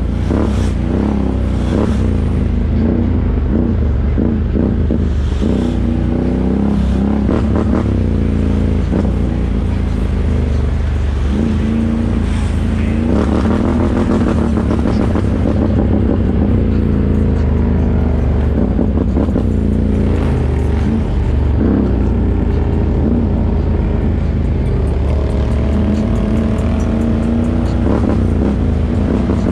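ATV engines running on the move, their pitch rising and falling as the throttle changes, over a steady low rumble on the action camera's microphone.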